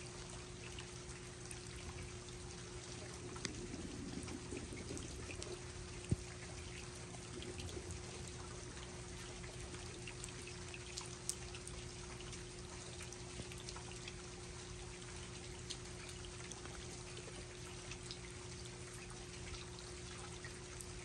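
Steady rain with scattered sharp drops ticking, one louder tap about six seconds in. A faint steady hum runs underneath.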